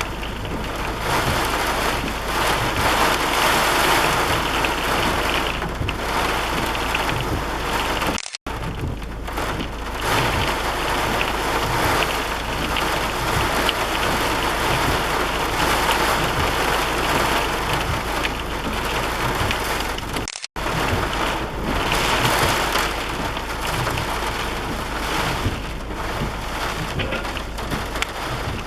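Heavy rain falling steadily, a dense even hiss. It drops out to silence for a split second twice, about a third and two-thirds of the way through.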